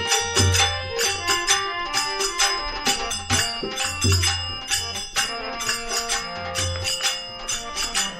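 Instrumental break in a Rajasthani devotional bhajan: steady rhythmic percussion with low drum thumps under a sustained melodic line, without singing.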